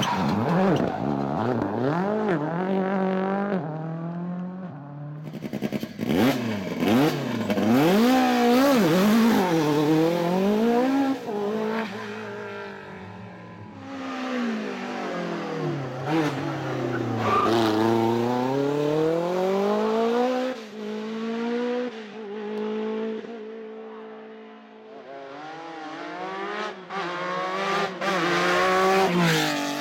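Dubbed-in rally car sound effect: a high-revving rally engine winds up in pitch again and again and drops back at gear changes and lift-offs. A hiss runs over it during the loudest stretches.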